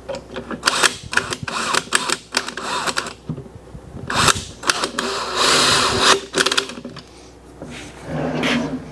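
Clicks and clatter of screws and a metal bar drawer pull being handled and fitted against a wooden drawer front, then a cordless drill briefly driving screws through the drawer into the handle, about five seconds in.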